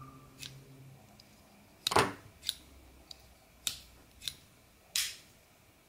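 Sharp clicks and clacks from a folding pocket knife being handled, about seven of them spread unevenly. The loudest, about two seconds in, has a dull knock under it.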